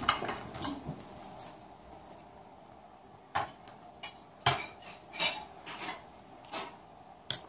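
Metal fondue forks clinking against a ceramic cheese-fondue pot and plates: scattered short clinks, a few in the first second, then about one a second in the second half.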